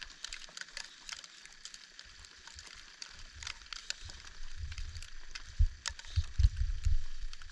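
Deep fresh snow crunching as a person digs and pushes a heavy overnight snow load off a sagging tent, with a run of dull thumps in the second half.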